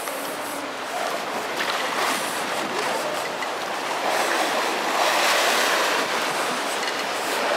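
Choppy lake waves washing against a concrete pier, with wind: a steady rushing that grows louder about four seconds in.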